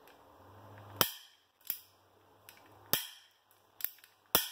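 Nanō Paper Pro mini stapler being squeezed shut again and again after reloading. It gives five sharp clicks roughly a second apart: three loud ones with two fainter ones between.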